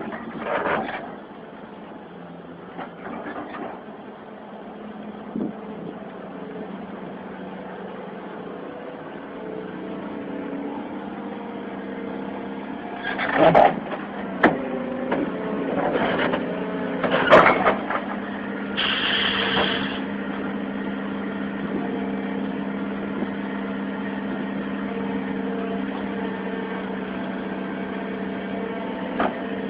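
Heavy diesel engine running steadily and slowly growing louder, with a few sharp clanks about halfway through and a brief hiss a few seconds later.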